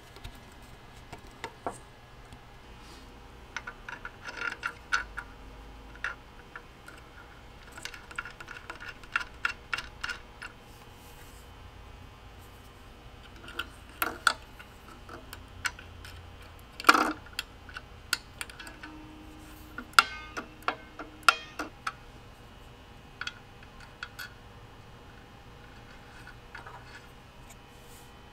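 Small metal clicks and taps as a screwdriver and small brass screws and fittings are handled and fitted on a cast-iron fire-bell mechanism. The clicks come irregularly, with a louder clack past the middle and a few more soon after.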